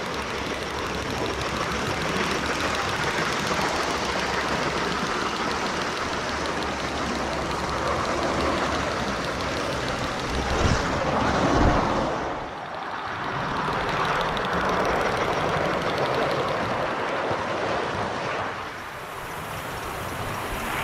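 Steady rushing noise of a Gauge 1 model train running on garden railway track, swelling briefly with a low rumble about halfway through.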